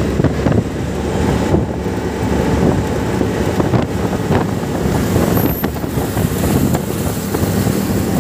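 Auto-rickshaw running along a city road, heard from inside its open cabin: a steady engine and road rumble, with wind buffeting the microphone.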